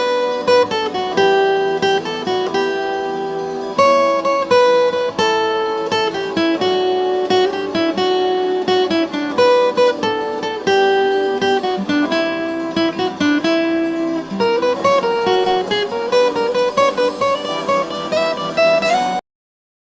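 Background music: a plucked guitar melody of separate notes, stopping abruptly near the end.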